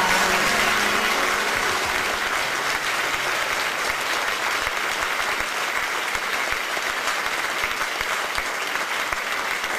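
Audience applauding steadily after the music's final note cuts off at the very start.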